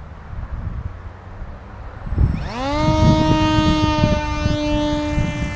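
Reptile S1100 RC plane's electric motor and propeller spinning up for a hand launch, rising quickly about two seconds in to a steady high whine at launch throttle. Wind rumble on the microphone underneath.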